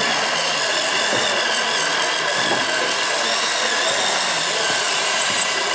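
Small electric motors of a radio-controlled model running with a steady whirr.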